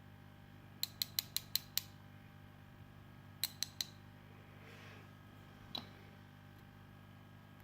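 Small metal lock parts, the pins and springs of a dismantled CISA lock, clicking as they are handled: six quick clicks about a second in, three more a couple of seconds later, and a single one near the end.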